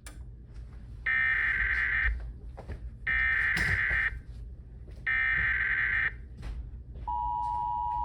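Emergency Alert System SAME header: three one-second bursts of warbling digital data tones, about two seconds apart, encoding a severe thunderstorm warning. About seven seconds in, the steady attention tone begins.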